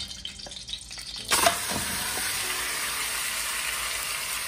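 Bone-in chicken pieces tipped into hot oil in a karahi: a sudden loud sizzle about a second in, then a steady frying hiss.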